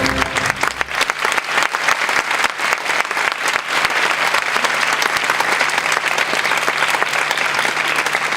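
Audience applauding, steady and loud, right after the orchestral music of a ballet piece comes to its final chord.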